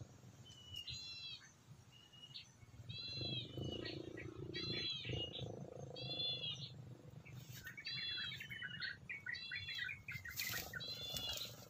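An animal, most likely a bird, giving short, arched, nasal calls about once a second, with a quick chattering run near the end. A low hum sits under the calls in the middle.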